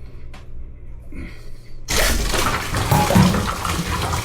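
Water suddenly rushing and splashing out of a 2-inch backflow preventer as its diaphragm cover is pried loose, starting about two seconds in. A single short click comes before it.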